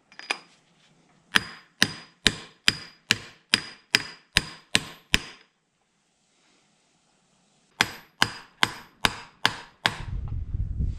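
Hammer blows on metal while driving a roller bearing. A steady run of about ten blows, a little over two a second, each with a short metallic ring, then after a pause about six more. Low rumbling handling noise near the end.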